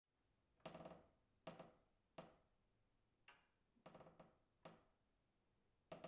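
Faint creaks of a wooden beam: about eight short creaks in turn, each starting suddenly and dying away within about half a second.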